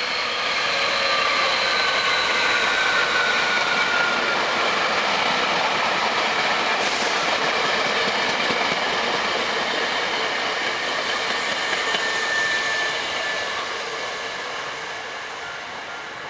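Eight-car Hankyu electric train passing at speed over a level crossing: wheels clattering on the rails under the whine of its VVVF-controlled traction motors, building up and then fading in the last few seconds. A level-crossing warning bell rings, heard most clearly as the train fades.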